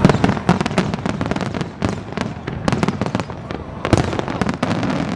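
Fireworks display: a rapid, irregular string of shell bursts and crackling reports over a continuous rumble, with several louder bangs, the biggest about four seconds in.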